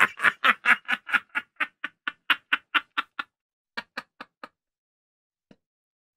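A man laughing hard in a fast run of short "ha"s, about five a second, for about three seconds. A last few come about four seconds in before it dies away.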